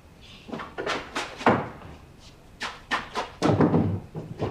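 Household clatter: a run of sharp knocks and bangs, several of them close together about three and a half seconds in.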